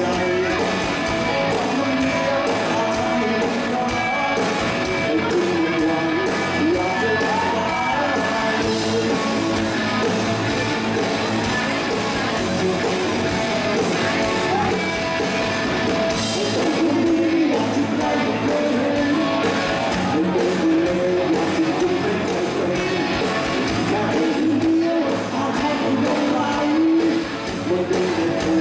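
Thai rock band playing live: electric guitars, bass and drums with a male lead singer, amplified through the venue's sound system.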